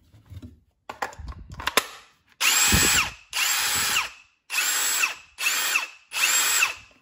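Ryobi P238 One+ brushless impact driver running free in the air on a small basic battery, triggered five times in short runs, its motor whine rising and falling with each run. A few sharp clicks come first as the battery is seated.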